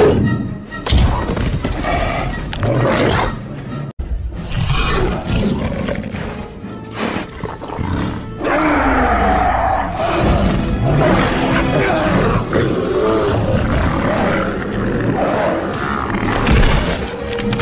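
Film fight soundtrack: music with the snarling roars of monstrous mutant dogs laid over it. There is a brief break about four seconds in.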